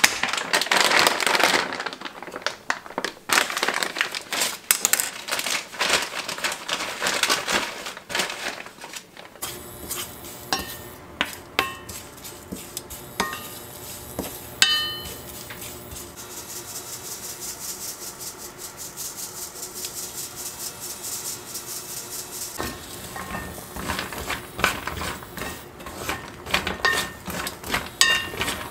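A plastic bag of dried anchovies crinkling and rustling as it is handled. Then, about nine seconds in, the dried anchovies are stirred with a wooden spatula in a dry stainless steel pan, with scattered light clicks. Near the end, walnuts are tossed and scraped around the same dry pan.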